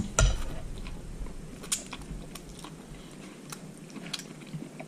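A person chewing a mouthful of cooked prickly pear cactus pad (nopales), with a few sharp clicks scattered through it.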